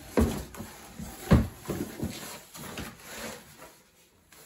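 Cardboard packaging being pulled off and handled around a heavy 18-inch subwoofer: a series of knocks, thumps and scraping rustles, the loudest thump about a second in, tailing off near the end.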